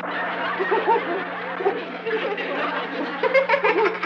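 Several people laughing at once, overlapping chuckles and giggles typical of sitcom studio-audience laughter mixed with a character's laugh, over a steady low hum.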